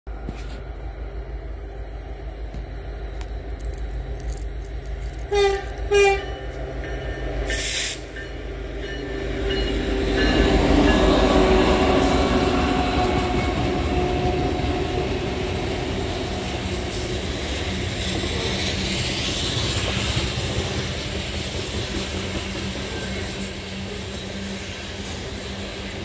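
Diesel freight locomotives approaching and sounding two short horn blasts about five seconds in, then passing loudly, followed by loaded coal hopper cars rolling by with steady wheel-on-rail noise and some clickety-clack.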